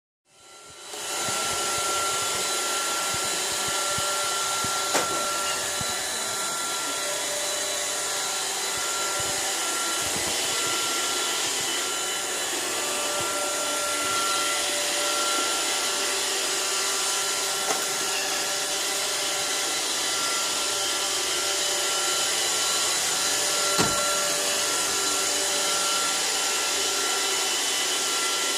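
iRobot Roomba 521 robot vacuum running: a steady whirring hum with a high whine, starting up within the first second. Three short sharp knocks come through it, about 5, 18 and 24 seconds in.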